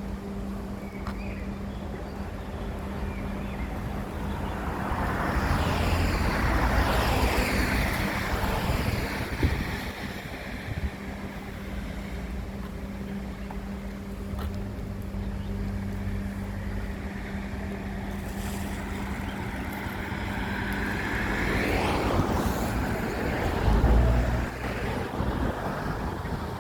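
Passing traffic: two vehicles go by, each swelling and then fading over a few seconds with a falling pitch as it passes, over a steady low hum.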